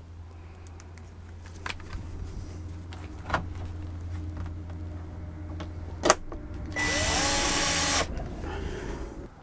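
Cordless drill-driver driving screws into a plastic ceiling-mounted air-conditioner return cover. Its motor whirs for about a second near the end, rising in pitch as it spins up, then runs again briefly and more quietly. Before that there is a steady low hum with a few sharp knocks.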